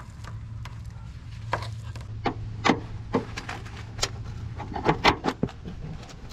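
Car body trim being pried off a rear quarter panel: a string of sharp, irregular clicks and snaps from clips and trim letting go, with a pry rod scraping on sheet metal, over a steady low hum.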